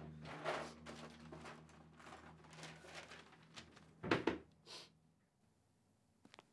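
Papers rustling and being shuffled on a desk over a steady low hum, with a louder thump just after four seconds in. A few faint ticks near the end.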